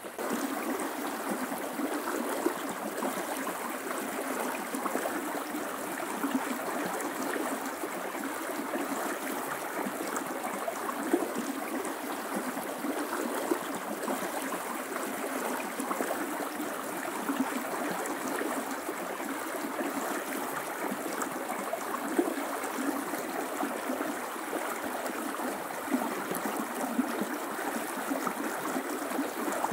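River water rushing steadily, with a few brief sharper peaks on top.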